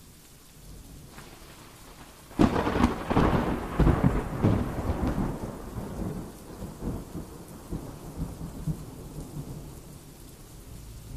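Muffled, irregular rumbling and buffeting from a vehicle-mounted camera's microphone as the vehicle drives: wind and vibration noise. It starts suddenly about two seconds in, is loudest for a few seconds, then settles to a lower rumble.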